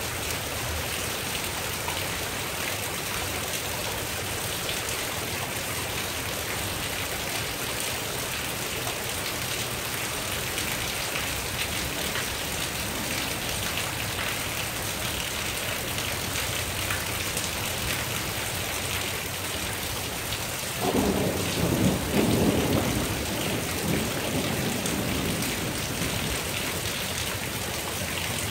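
Steady rain throughout, and about 21 seconds in a sudden, louder rumble of thunder that lasts a few seconds before fading back under the rain.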